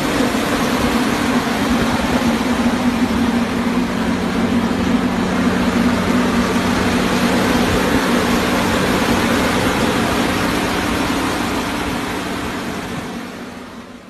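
CLAAS Lexion 770 combine harvester running steadily while cutting wheat: a constant engine hum with a dense rushing noise over it, fading out near the end.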